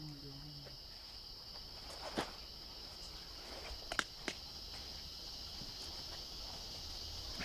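Steady high-pitched chorus of insects in summer woodland, with a few sharp snaps of footsteps through dense undergrowth about two and four seconds in.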